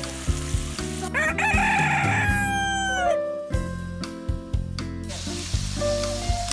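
A rooster crowing cock-a-doodle-doo once, its long last note falling in pitch, used as a sound effect for a time skip, over background music with a steady beat. The sizzle of patties frying on a griddle comes back near the end.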